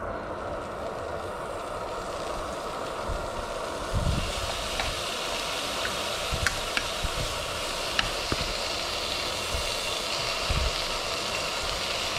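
Thin slices of raw beef sizzling in a hot frying pan as they are laid in with metal tongs. The sizzle starts about four seconds in and holds steady, with a few light clicks of the tongs, over a steady low hum.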